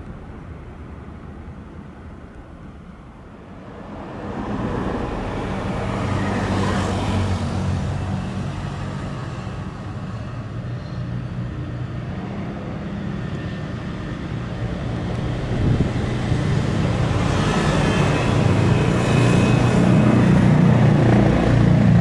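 Road traffic: passing vehicles' engines and tyres make a steady rumble that swells about four seconds in and grows louder again near the end.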